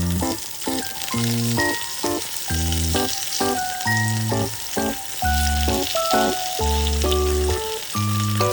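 Background music with a melody and bass line, and under it a steady sizzle of food frying in oil in a pan.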